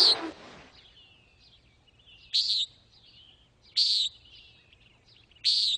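Common nighthawk giving its nasal, buzzy peent flight call four times, about one and a half seconds apart.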